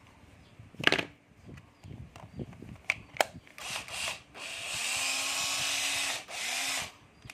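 Cordless drill/driver test-run with no load: two sharp clicks, then a couple of short trigger bursts, then the motor spins up to a steady whine for about a second and a half, followed by another short run near the end. The chuck spins freely without jamming.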